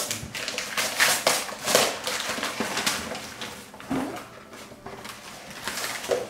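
Gift wrapping paper being torn and crinkled as a present is unwrapped, in a series of short rips and rustles.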